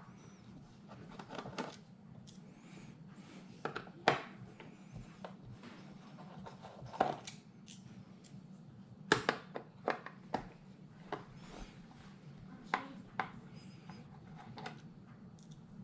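Scattered small clicks and taps of a Phillips screwdriver working out the four screws that hold an all-in-one computer's mount, with the screws and mount being handled.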